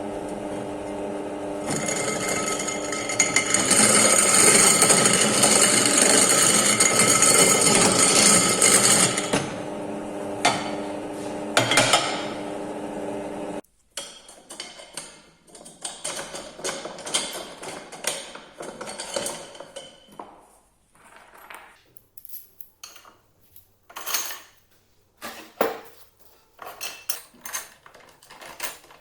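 An electric power tool runs with a steady motor hum, then bites into metal with a loud, rough grinding from about 2 to 9 seconds, easing off with a few sharp screeches before stopping abruptly about halfway through. After that come scattered metal clinks and knocks of parts being handled.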